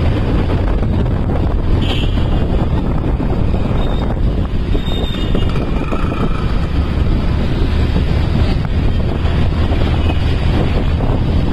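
Wind buffeting the microphone of a camera carried on a moving vehicle through street traffic, a steady rumbling rush with engine and traffic noise beneath it. A few brief faint higher tones cut through it about two, five and six seconds in.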